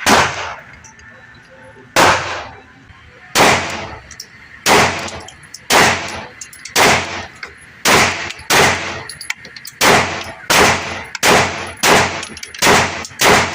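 A firearm fired in a string of about fifteen shots, each with a short echo. The shots come faster as the string goes on, from about two seconds apart to about half a second apart.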